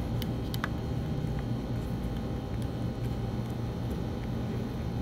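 A kitten chewing chicken and rice off a plastic plate, a few small clicks in the first second and a half, over a steady low hum.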